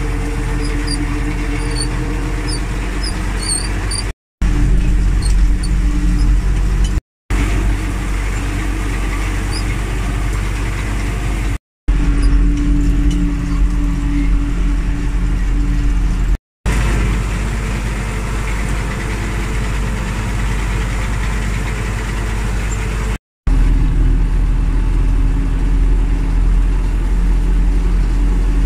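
Belarus 920.3 tractor's four-cylinder diesel engine running steadily under load while pulling a rotary hay rake. The sound cuts out for a moment five times.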